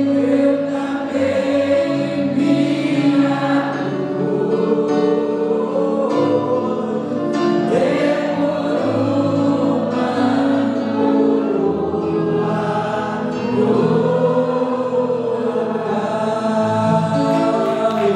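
A small group of mixed voices, a man and two women, sing a Portuguese-language Christian worship song together with long held notes, over electric guitar accompaniment.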